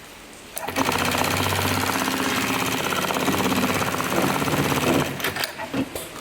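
Sewing machine stitching webbing: a fast, even run of needle strokes that starts about half a second in and runs for about four seconds, then breaks into a few separate clicks as it stops.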